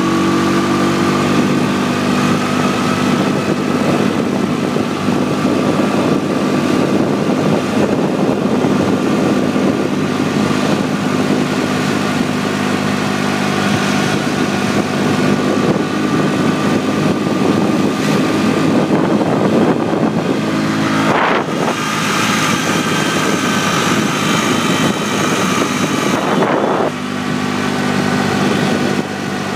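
Motorbike engine running steadily as it climbs a mountain road, with wind rushing over the microphone. The engine note shifts about two-thirds of the way through, and the sound dips briefly near the end.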